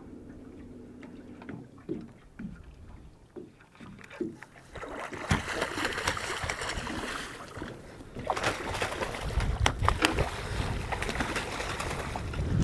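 Lake water sloshing and splashing against a small boat, with wind buffeting the microphone. It is quiet at first, then gets busier about halfway in with clicks and splashes, and a low wind rumble builds near the end.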